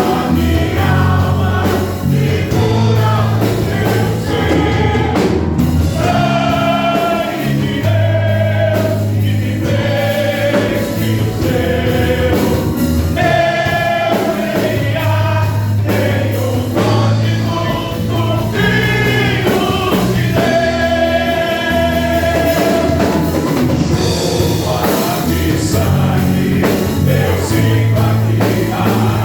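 Gospel song: a group of voices singing held, sustained lines over an instrumental band backing with a steady bass.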